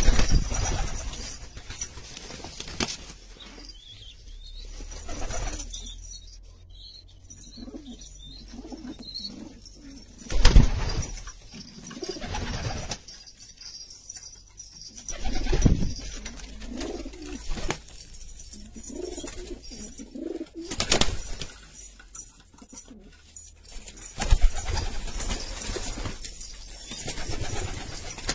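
Domestic pigeons cooing repeatedly, with a few short, loud bursts of noise along the way.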